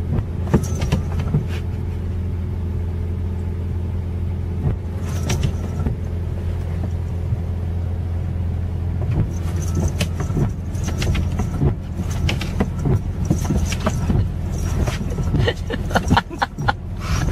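Car engine idling with a steady low hum, heard from inside the cabin. Scattered taps and knocks on the windshield glass from the wipers and a cat's paws, growing busier in the second half.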